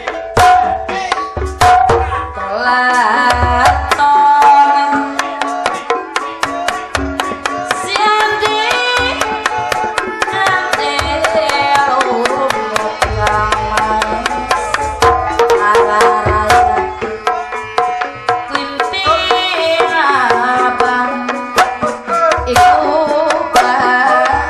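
Sundanese ronggeng dance music: kendang hand drums playing quick, dense strokes with deep booming bass beats, under a melody that slides and bends in pitch.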